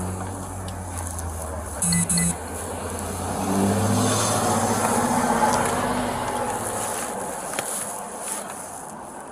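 A motor vehicle running, growing louder to a peak about halfway through and then fading. Two short electronic beeps sound about two seconds in.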